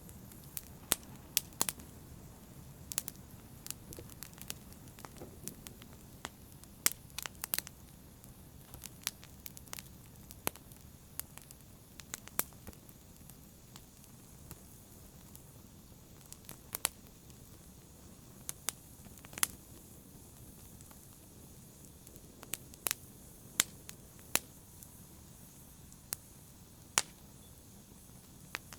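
Open fire crackling: irregular sharp pops and snaps, several a second at times, over a soft steady low rumble of burning.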